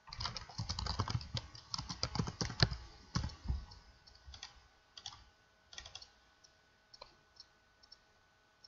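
Typing on a computer keyboard: a quick run of keystrokes for about three and a half seconds, then a few scattered single clicks.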